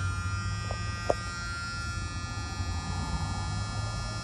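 Steady electrical buzz with a high whine over a low hum, and a single sharp click about a second in.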